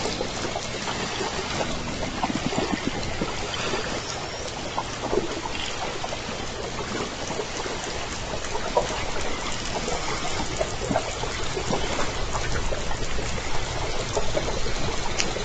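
Underwater hydrophone noise: a steady hiss of moving water with scattered faint clicks and a few brief faint squeaks.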